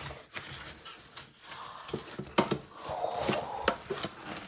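Cardboard box and plastic wrap being handled and rustled as a box is pulled out of its packaging, with a few light knocks and taps. The sharpest knocks come about two and a half and three and a half seconds in.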